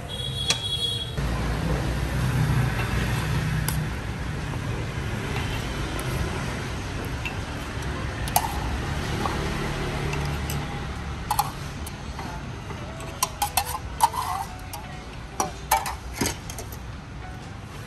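A metal ladle clinking against ceramic soup pots as broth is served, a series of sharp clinks bunched in the second half, over a steady low background rumble.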